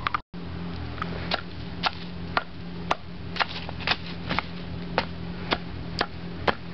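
A stick striking a burning heap of embers and ash: sharp knocks about twice a second, fairly evenly spaced, over a steady low background noise.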